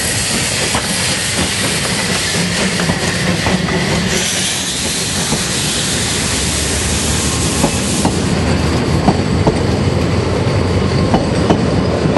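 Narrow-gauge steam train, the Saxon IV K locomotive No. 176 and its wooden carriages, rolling slowly past close by. A high hiss from the locomotive fades about eight seconds in, leaving the rumble of the coaches and the clicking of their wheels over the rail joints.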